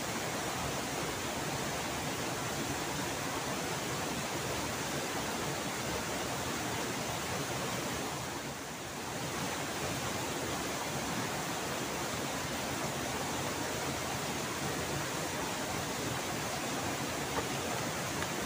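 Steady rush of a waterfall and fast-flowing river water, an even hiss that softens briefly about halfway through.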